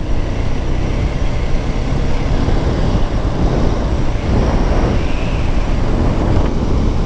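Steady wind rush and road noise from a Honda NX4 Falcon motorcycle travelling at road speed, with the engine running underneath.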